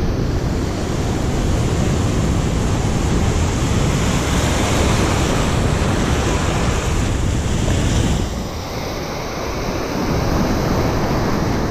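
Ocean surf breaking and washing over shoreline rocks in a steady rush, with wind buffeting the microphone. The wash eases for a couple of seconds past the middle, then builds again.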